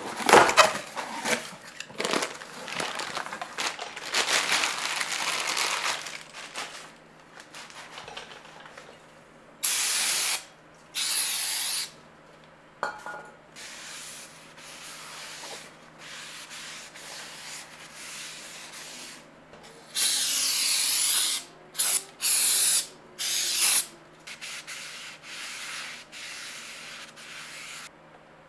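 Cardboard rustling as the box of a new brake rotor is opened and handled. Later come rubbing sounds and several hissing bursts from an aerosol can: two near the middle, then a longer one followed by short ones.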